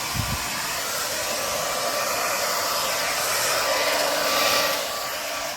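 Hair dryer running steadily, blowing poured acrylic paint across a canvas in a Dutch pour; it is switched off near the end.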